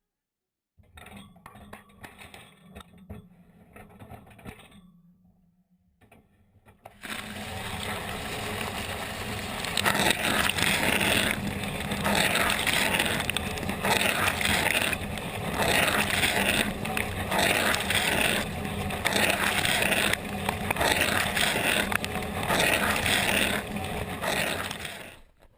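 Dishwasher running, heard from inside through a GoPro's waterproof housing. A motor hum comes first for a few seconds, then loud water spray pelts the housing, surging and easing every second or two, and cuts off suddenly near the end.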